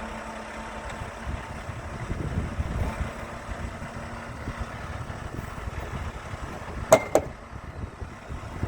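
Forklift engine running with a steady low rumble while it handles a boat. Two sharp metallic clanks sound close together about seven seconds in.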